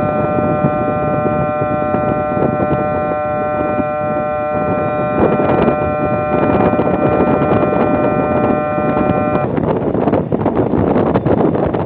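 A steady chord of several high tones sounding together, cutting off suddenly about nine and a half seconds in, over wind buffeting the microphone on a ship's deck.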